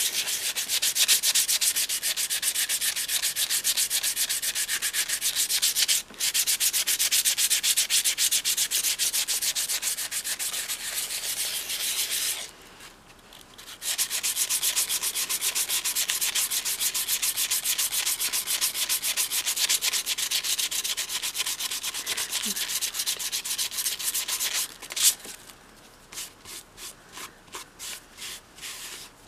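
Sandpaper rubbing fast back and forth over soft filler on a doll's head, smoothing it down. The strokes are steady with a brief pause about halfway. Near the end there is a single knock, then slower separate strokes.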